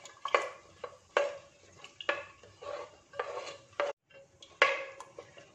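Long metal spoon stirring chunky vegetable pieces in water inside a terracotta clay pot, scraping and knocking against the pot wall in irregular strokes, about two a second.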